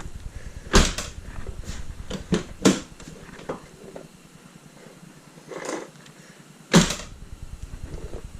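Knocks and clunks of hand work on a car door: several sharp impacts, loudest about a second in, near three seconds and near seven seconds, with lighter clicks and rattles between.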